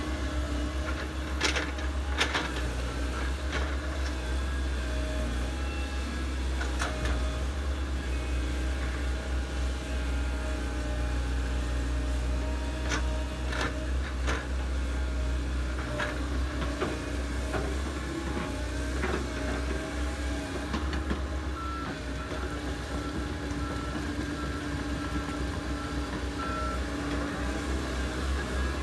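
Komatsu PC130 hydraulic excavator's diesel engine running steadily under load while it digs, with a steady hydraulic whine and occasional sharp knocks. About two-thirds of the way in, an excavator's travel alarm starts beeping at an even pace.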